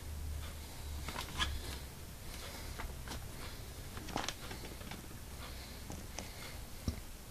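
Light scattered clicks and taps of handling, a hand against a cardiac monitor's plastic case, over a low hum that fades out about a second and a half in.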